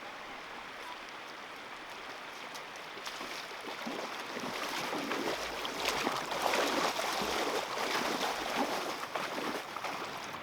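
Water sloshing and splashing, growing louder and busier about four seconds in.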